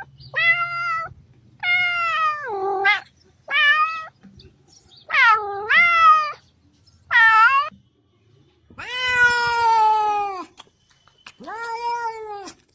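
Domestic cat meowing repeatedly: seven separate meows, some short and some long and drawn out, with brief pauses between them.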